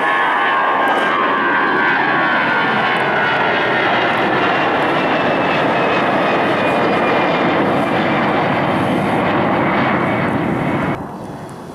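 Twin jet engines of a Swiss Airbus A320-family airliner at takeoff power, climbing out after liftoff: a loud steady roar with a high whine that falls in pitch over the first few seconds as the plane passes. The sound drops off abruptly near the end.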